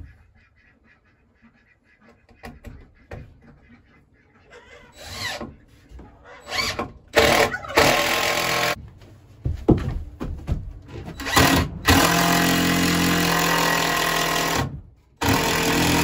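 Cordless drill fastening a board to a wooden wall: short bursts of the motor starting about five seconds in, then two longer steady runs of a couple of seconds each near the end.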